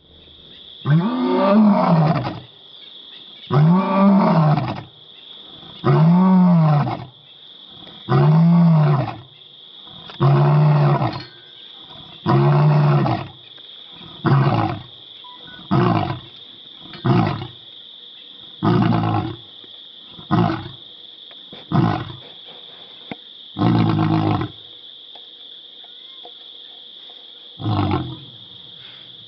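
Male African lion roaring: about five long, deep roars, each rising and then falling in pitch, followed by about nine shorter grunts, the last one after a pause near the end.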